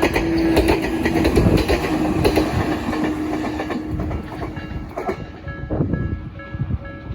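A train running through a level crossing with its wheels clattering over the rail joints, while the crossing's electronic warning bell, a Nikko-type ding, keeps ringing. As the train clears, about five seconds in, the bell's evenly repeated dings come to the fore.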